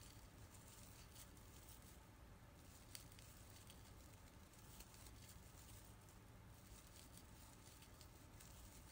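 Near silence with faint scattered ticks and rustles: a crochet hook working sparkly acrylic scrubber yarn through double crochet stitches.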